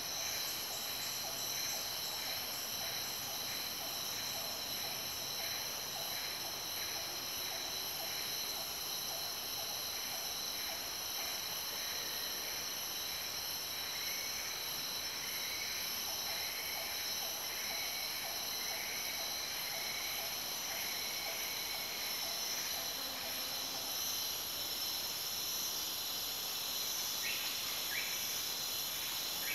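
Rainforest ambience: a steady chorus of insects holding several constant high tones, with a quick, evenly repeated call running through most of it and two short rising whistles near the end.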